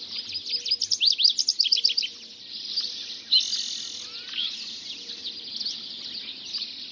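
Dawn chorus: many songbirds singing at once, a dense mix of quick chirps, whistles and trills, busiest with a run of rapid sweeping notes about one to two seconds in.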